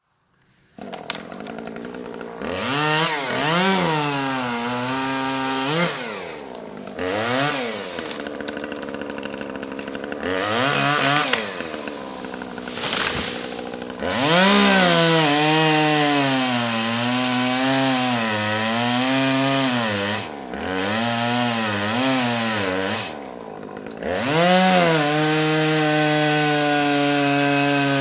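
Chainsaw starting and being revved up and down several times, then running at high revs with a wavering pitch as it cuts small trees, before dropping back to a steady idle near the end.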